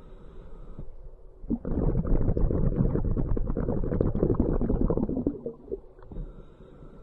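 Scuba diver breathing underwater through a regulator. A short hissing inhale comes first, then a long bubbling exhale of about four seconds, and the next hissing inhale starts near the end.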